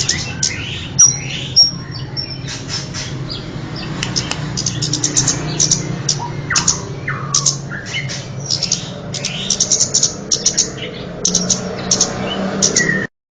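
Kemade bird calls from a lure recording: rapid runs of short, high chirps with a few downward-sliding notes, over a steady low hum. The recording cuts off sharply near the end.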